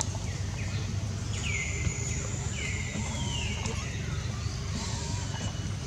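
Monkeys giving short high-pitched squeals, each sliding down in pitch, about five times, over a steady low rumble.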